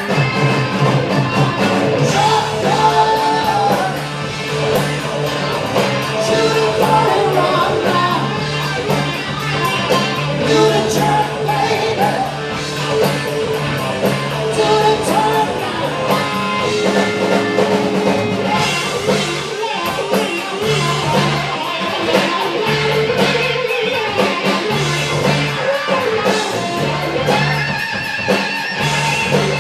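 Rock band playing live, with singing, electric guitar and a drum kit.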